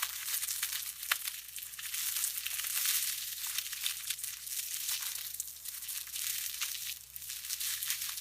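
Fresh, crisp salad greens crunching: a dense run of crackles and small snaps, with no pause.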